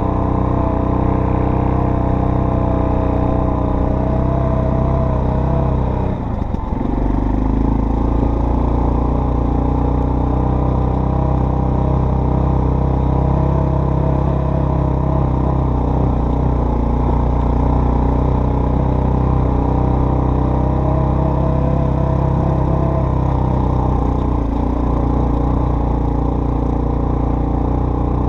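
Off-road vehicle engine running under way on a trail, with a brief dip about six seconds in, after which it settles to a lower, steadier note.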